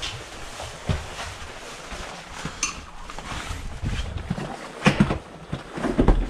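Footsteps going out through a door, with the door's latch and handle clicking and clinking: a click about a second in, a sharp metallic rattle midway, then heavy thuds near the end.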